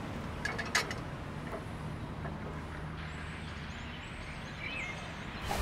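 Steady low rumble of outdoor street ambience, with a couple of short clicks under a second in and faint high chirps near the end.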